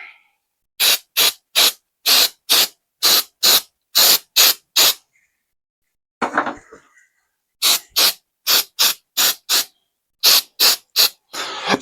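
CA glue activator sprayed from a pump spray bottle in short squirts, about twenty in three quick runs of two or three a second, to cure super glue around freshly seated magnets.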